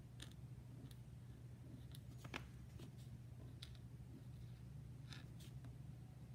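Faint scratching of a pen writing on envelope paper in short, separate strokes, with one slightly sharper tick about two seconds in, over a steady low hum.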